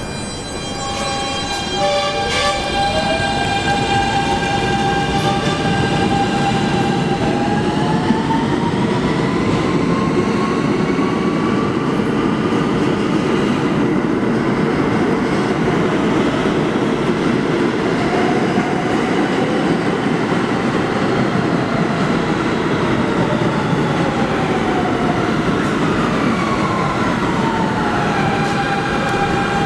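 New York City Subway R160 train pulling out of an underground station: its electric propulsion whine steps up in pitch as it accelerates, over a steady rumble of wheels on rail. Near the end a train's whine glides back down in pitch as it slows into the station.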